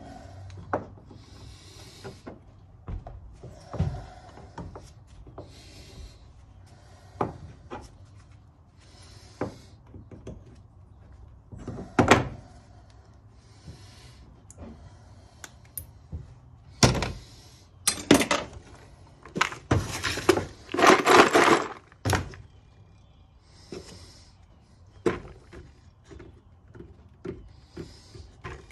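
Tools and metal parts handled on a wooden floor: scattered knocks and clunks, with a loud knock about twelve seconds in and a dense run of clattering and scraping about two-thirds of the way through.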